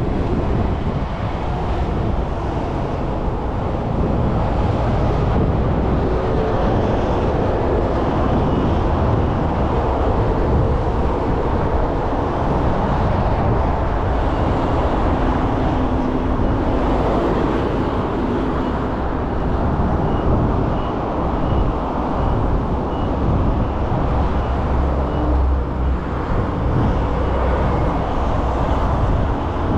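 Road traffic passing close by: a continuous low rumble of cars and heavier vehicles with tyre noise, swelling and easing as vehicles go past.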